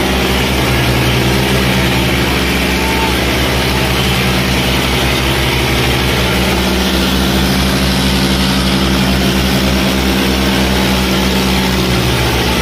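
Diesel tractor engines of a Swaraj 855 and an old Eicher running hard under heavy pulling load in a tractor tug-of-war: a loud, steady, low engine drone that shifts slightly in pitch about seven seconds in.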